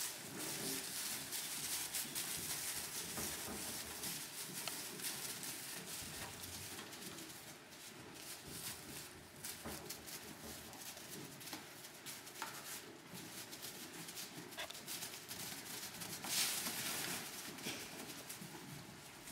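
Straw rustling and crunching under small hooves as newborn lambs move about a straw-bedded pen, with a louder burst of rustling about sixteen seconds in.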